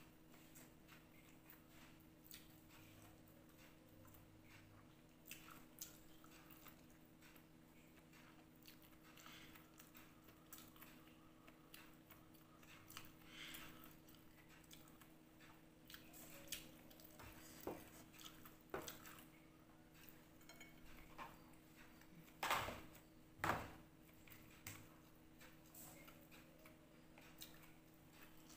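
Quiet eating sounds: chewing and fingers working food on a ceramic plate, with scattered small clicks and two louder knocks about two-thirds of the way through, over a faint steady hum.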